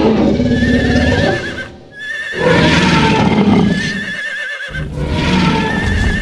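Horse neighing sound effect: four whinnies in a row, each a quavering high call about a second long.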